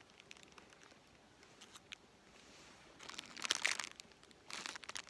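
Plastic wrapper of a cinnamon roll crinkling as it is handled, in two short bursts in the second half, with a few faint ticks before them.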